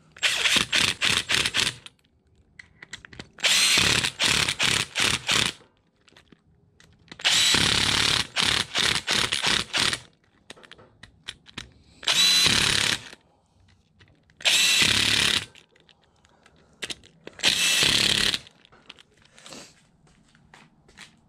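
Cordless impact driver running down the side-cover bolts on a Yamaha YFZ450R engine, in six short bursts of one to three seconds each with pauses between bolts.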